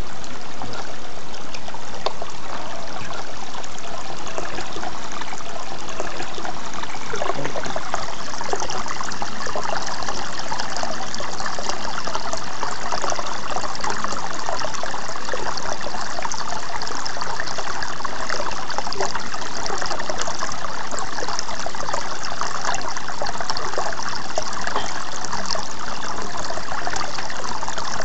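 Water running steadily from the end of a black pipe and splashing into a shallow pond: a continuous trickle.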